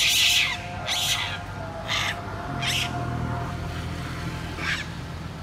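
Macaques giving short, high-pitched screeching calls, one roughly every second, several in a row.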